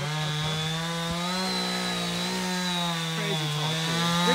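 Chainsaw running steadily at high speed, cutting into the trunk of a tall tree to fell it. Its pitch holds nearly level, with a slight wobble near the end as the load changes.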